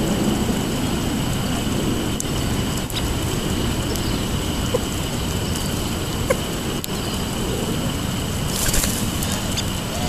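Collared doves, a California quail and sparrows feeding on seed spread on asphalt: scattered light ticks of pecking over a steady low outdoor rumble, with a short rush of noise about nine seconds in.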